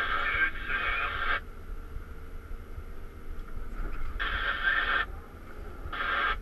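Cat 323 excavator heard from the cab, its engine running low and steady, with three bursts of high squealing hiss as the boom and bucket are worked: a long one at the start, then two shorter ones near the end.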